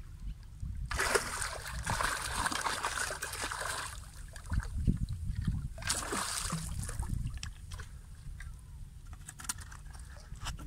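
A hooked bluefish thrashing at the surface on a tight line, throwing up water in two bouts of splashing: a long one about a second in and a shorter one about six seconds in.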